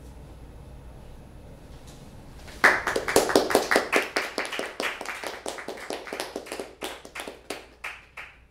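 Small audience applauding, breaking out suddenly about two and a half seconds in after a faint low hum, then thinning out toward the end.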